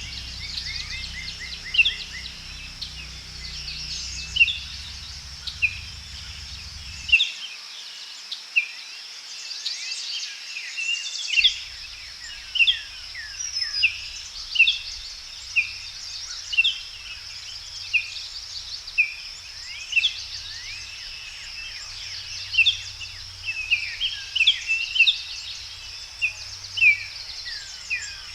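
Birds chirping repeatedly in short, sharp notes that fall in pitch, about one a second and sometimes in quick runs, over a steady high drone of insects.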